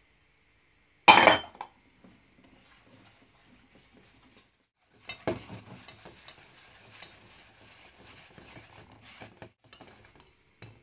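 A single loud knock about a second in. Then, from about five seconds in, a wire whisk stirring and scraping around a stainless steel bowl with rapid clicks of the wires on the metal, working cocoa powder, flour and melted butter into a crumbly mix.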